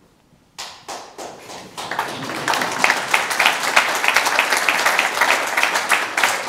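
Audience applause: many people clapping, starting about half a second in and swelling over the next second or so to a steady level.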